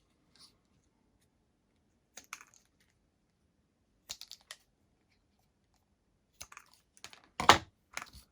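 Scattered clicks and taps of small hand tools and parts being handled on a workbench during soldering work, with a louder knock a little before the end.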